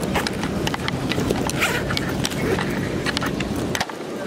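Handling noise from a camera or phone being jostled and rubbed right against the microphone: a low rumble with many short knocks and clicks.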